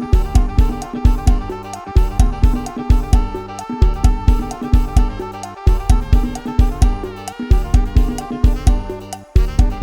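Isan lam sing-style instrumental music: a sampled drum kit and bass playing a steady beat, the kick drum hitting about twice a second, under a melody line.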